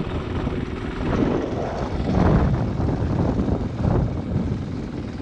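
Motorcycle engine running steadily as the bike rides along a dirt road.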